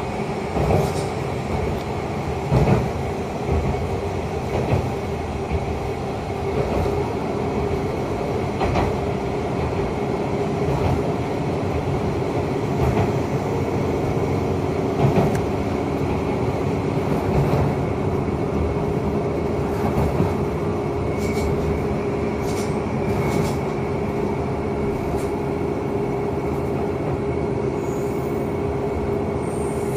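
Diesel express train running along the line, heard from inside the carriage: a steady engine hum and rolling noise, with scattered knocks from the wheels, most of them in the first half.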